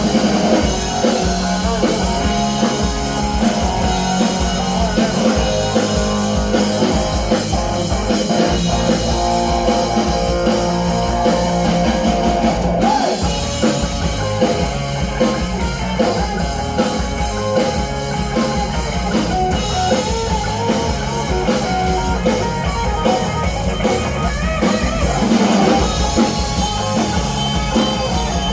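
Rock band playing live: drum kit and guitar in a passage without vocals.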